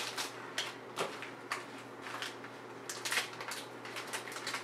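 Plastic chip bag crinkling and rustling as it is handled and opened, in irregular crackles that bunch up about three seconds in.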